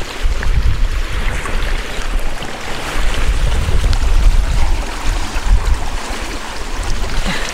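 Small rocky mountain stream running, with a soft plastic water bag dipped into the flow to fill near the end. Wind gusts rumble on the microphone throughout.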